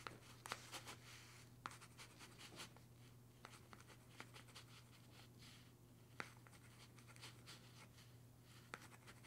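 Chalk writing on a blackboard, faint: short scratching strokes and light taps of the chalk tip, over a steady low hum.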